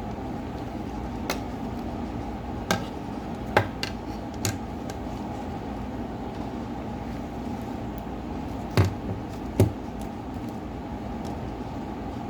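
About six sharp clicks and taps of small tools and phone parts being handled on a work surface during a smartphone teardown, over a steady background hum.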